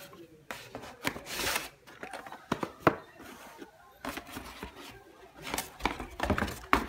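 Cardboard packaging being handled: a white card insert and brown cardboard box sliding, scraping and knocking against each other, with a few sharp knocks, the loudest about three seconds in and near the end.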